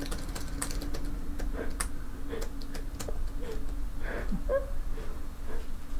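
Typing on a keyboard: quick, irregular key clicks over a steady low room hum. About four seconds in, a faint muffled sound with brief pitch glides comes through.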